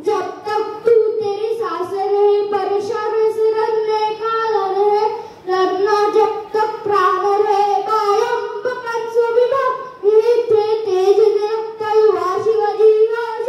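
A boy singing solo into a handheld microphone, holding and bending long notes in phrases, with two brief pauses for breath.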